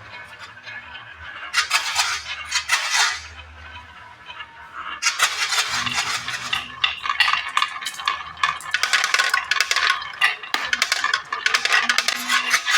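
Marbles rolling and clattering through a wooden marble run: a brief burst of rapid clicking, then from about five seconds in a dense, nearly continuous rattle of clicks as marbles race along the track.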